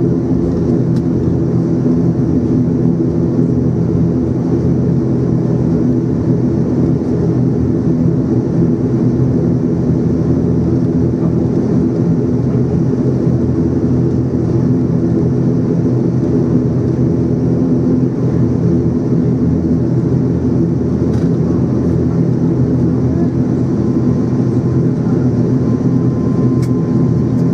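Steady drone of a turboprop airliner's engines heard inside the passenger cabin while taxiing after landing, with several low steady tones. A faint higher tone comes in near the end.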